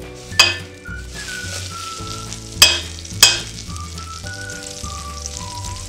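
Butter sizzling as it melts in a stainless steel pot, stirred with a metal spoon. The spoon clinks sharply against the pot three times: about half a second in, then twice in quick succession a little past the middle.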